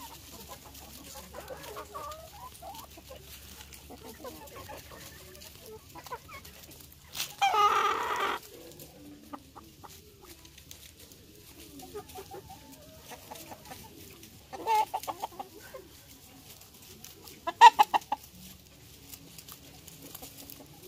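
A flock of Hmong mixed-breed chickens clucking softly as they feed. About seven seconds in, one bird gives a loud drawn-out call lasting a little over a second. Later come two short, loud bursts of quick repeated calls, the last one the loudest.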